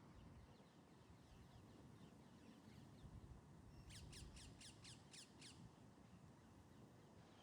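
Faint bird song: a quick run of about eight high notes, each sweeping downward, about four seconds in, over a quiet background hiss, with fainter similar notes before it.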